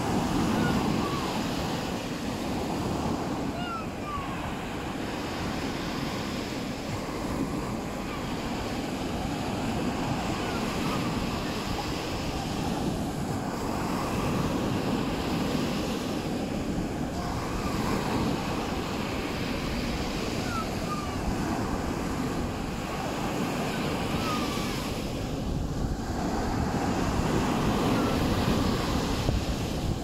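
Sea surf washing on a beach, with wind noise on the microphone, swelling and easing every few seconds.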